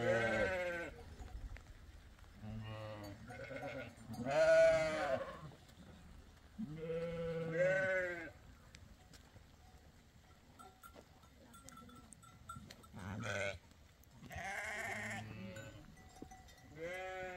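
Goats bleating in a pen, about seven wavering calls a second or two apart.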